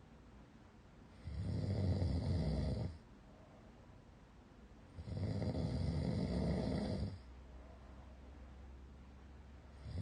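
A person snoring loudly in sleep: two long snores about four seconds apart, each lasting one and a half to two seconds, with a third starting at the very end.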